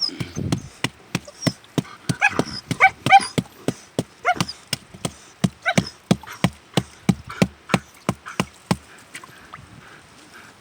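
A hunting dog barking rapidly and steadily, about three barks a second, with higher yelps mixed in during the first half. The barking stops about 9 seconds in.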